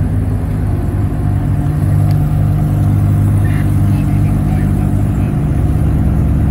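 Supercharged 6.2-litre Hemi V8 of a modified Ram TRX pickup idling in a steady low drone while staged at the drag strip starting line, its low note shifting slightly about five seconds in.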